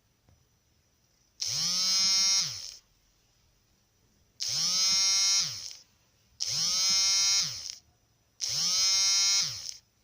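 Domestic cat snoring in its sleep: four snores, each a little over a second long, coming two to three seconds apart. The pitch of each snore rises and then falls.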